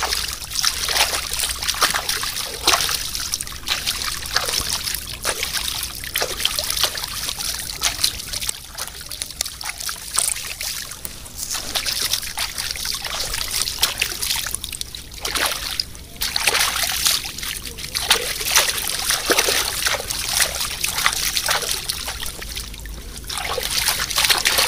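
Hands scrubbing and splashing in shallow, flowing stream water, washing off mud, with the water trickling steadily. The splashes come irregularly, in quick clusters.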